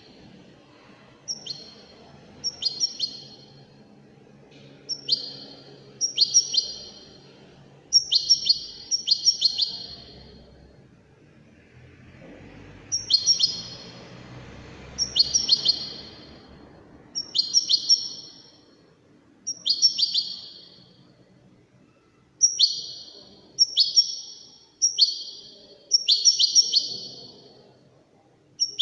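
European goldfinch singing: short bursts of twittering notes that sweep down in pitch, repeated every second or two, with a pause of about two seconds near the middle.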